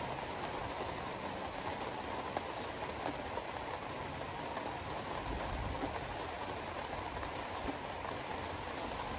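Road noise heard from inside a car driving on a wet highway: a steady hiss of tyres on wet pavement, with a deeper rumble coming in about five seconds in.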